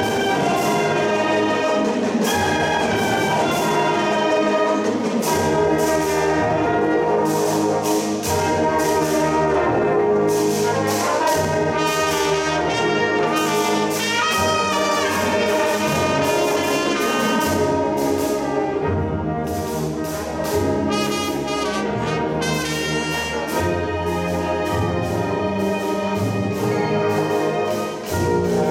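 High school marching band playing a brass-led piece, trumpets and trombones carrying the tune, with drums striking along.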